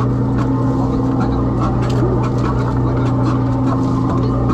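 A crab fishing boat's engine running with a steady low drone, with scattered faint clicks and knocks from the gear and crabs being handled on deck.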